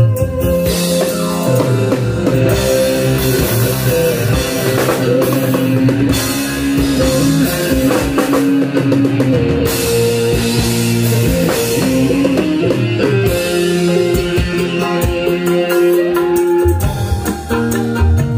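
Loud instrumental band music with a drum beat and sustained melody lines, played through a PA sound system during a sound check.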